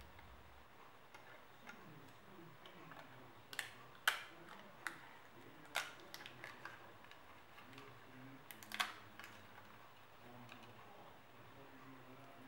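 Light clicks and ticks of a piercing tool and fingertips working die-cut cardstock, easing the cut pieces out. The ticks come scattered and irregular, the clearest about four and six seconds in and a short cluster just before nine seconds.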